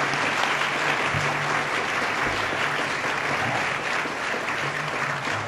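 Audience of lunch guests applauding steadily, many hands clapping at once.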